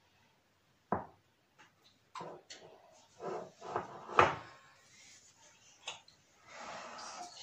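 Knocks and clatter of kitchen things being handled on a countertop: a metal pot and paper cups being set down, with the loudest knock about four seconds in and a brief scraping sound near the end.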